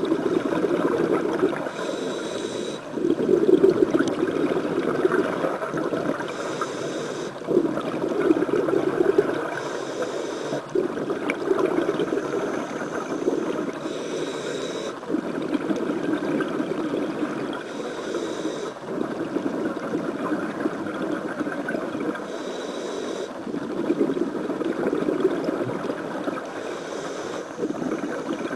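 Scuba diver breathing through a regulator underwater: a short hiss of inhalation, then a longer bubbling rush of exhaled air, repeating about every four to five seconds.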